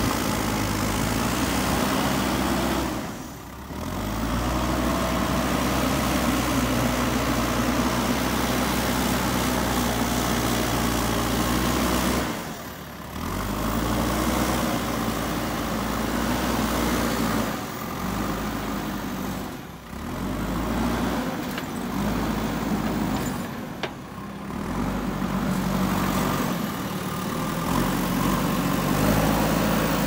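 JCB 3DX Super backhoe loader's diesel engine running steadily while the front loader bucket pushes and spreads soil. The sound drops away briefly four times.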